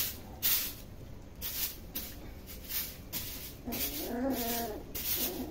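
A puppy gives a whining, grumbling cry about four seconds in, rising then falling in pitch, with a short second cry just after: an angry complaint while feeding alongside its littermates. In between come short scratchy noises of the puppies eating off a sheet of paper.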